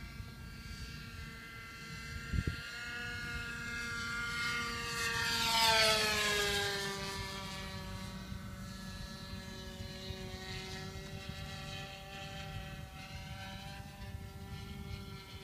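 O.S. .46 two-stroke glow engine of a radio-controlled model airplane droning in flight. It grows loudest as the plane passes about six seconds in, its pitch dropping as it goes by, then runs on steadily at a lower pitch further off.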